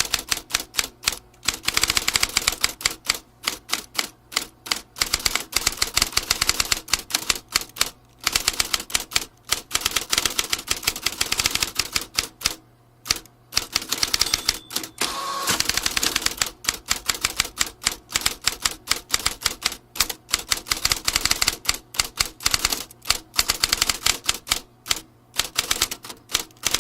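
Vintage typewriter being typed on: rapid keystrikes clacking in quick runs, with brief pauses between them.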